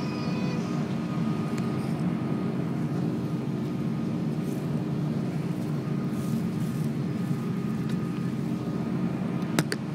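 Airbus A330-200 cabin noise while taxiing: a steady engine and air-conditioning hum with a constant tone running through it. Two sharp clicks come near the end.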